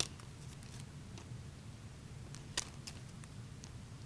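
A few faint, sharp plastic clicks and light rustles as a slabbed trading card is handled and pulled out slowly. The loudest click comes about two and a half seconds in, over a low steady hum.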